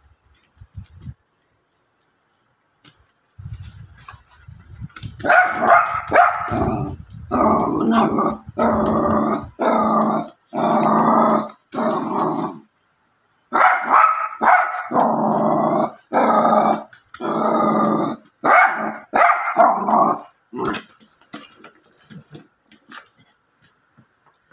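Jack Russell terrier puppy starts with a low growl, then lets out a long series of drawn-out growling barks, each under a second, with one short break about halfway through.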